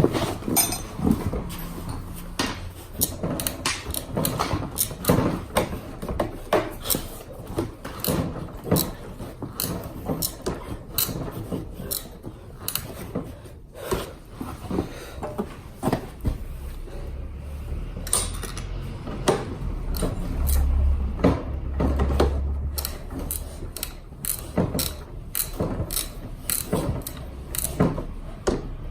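Hand tools working on a Honda Today scooter's seized rear wheel: a long run of irregular clicks and knocks, with a brief low drone about two-thirds of the way through.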